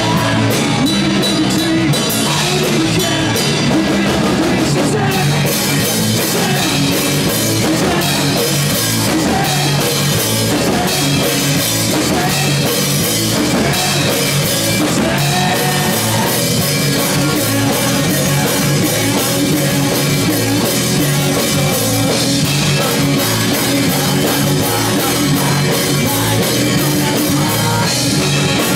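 Live rock band playing loud and continuous: drum kit keeping a steady beat under guitar.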